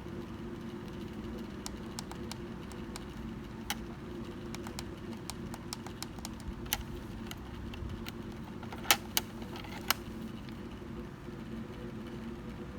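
Daikin ceiling-mounted air conditioner running with a steady hum. Scattered light clicks sound over it, and a few sharper clicks come about nine seconds in.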